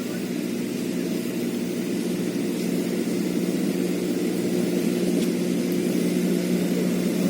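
A steady motor drone, growing slightly louder.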